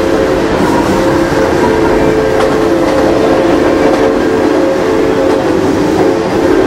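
A train running, with a rumbling noise under a long, steady chord of several tones sounded together, like a multi-note train horn or chime whistle held on.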